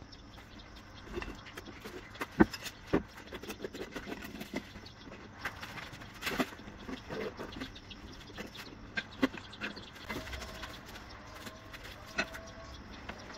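Scattered sharp knocks and clicks from hand tiling work, as small glass mosaic tiles and tools are handled and pressed into adhesive; the loudest knocks come about two and a half and three seconds in. Faint livestock calls are in the background near the end.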